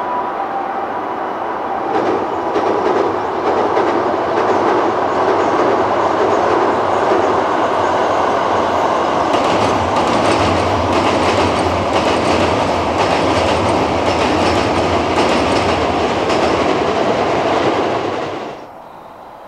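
Keikyu 1000 series electric train crossing a steel truss railway bridge: a steady rumble that grows louder about two seconds in, with a fast run of wheel clacks over the rail joints through the middle. It stops abruptly near the end.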